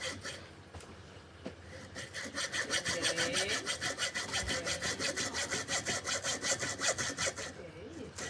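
Hand saw cutting through bamboo in quick, even back-and-forth strokes, about three or four a second. The sawing stops for a moment about half a second in, picks up again about two seconds in, and breaks briefly near the end.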